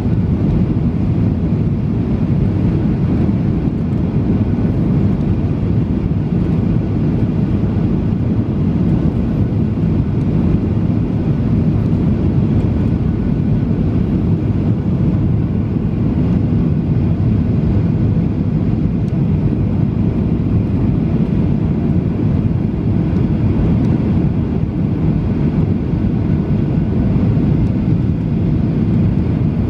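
Cabin noise of a Boeing 737-800 airliner on final approach: a steady, low rush of its CFM56 engines and of air over the extended flaps.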